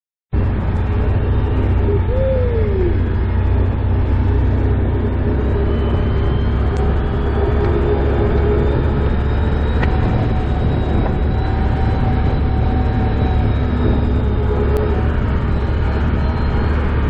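Can-Am ATV engine running steadily while riding a rough grass-and-dirt track, with a heavy low rumble. It starts suddenly right at the beginning.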